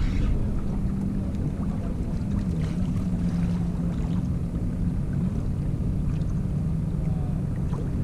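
Small skiff's motor running steadily with a low hum that wavers slightly in pitch, with wind on the microphone.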